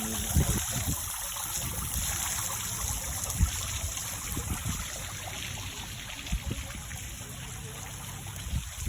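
Water fountain splashing and trickling steadily, with a few short low thumps.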